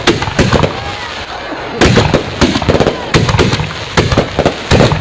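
Fireworks going off: a rapid, irregular string of sharp bangs and cracks, coming thickest from about two seconds in.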